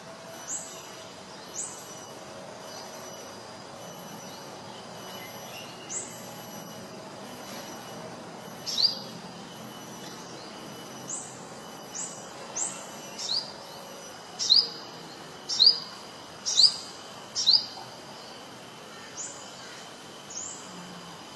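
Sogon bird calling in the wild: a string of short, sharply rising whistled chirps, scattered irregularly and loudest in a quick run about two-thirds of the way through. A faint steady high hum and hiss run underneath.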